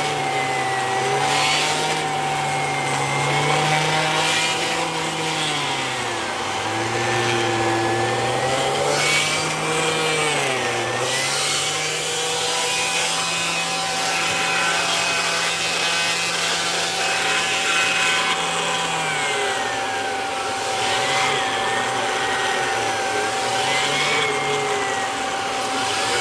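Kirby Avalir vacuum cleaner running in hose mode with the zip brush attachment, cleaning hair off a carpeted cat tree. A steady high motor whine holds throughout, while a lower hum dips and rises in pitch again and again as the suction load changes.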